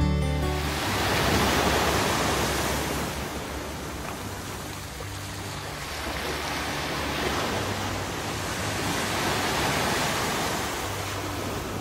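Small waves breaking and washing up on a sandy beach, a continuous wash of surf that swells and eases, louder about a second in and again near the end.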